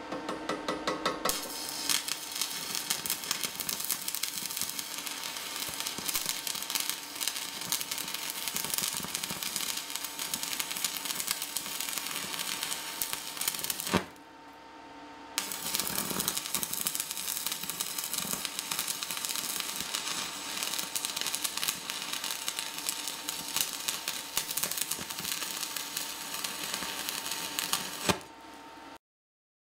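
Stick-welding arc crackling steadily in two runs of about twelve seconds each, the first broken off with a sharp click about halfway and the second ending the same way shortly before it all goes quiet. It is a preheating electrode at 100 amps drawn over a steel T-angle as a counter-weld, to pull the weld distortion straight.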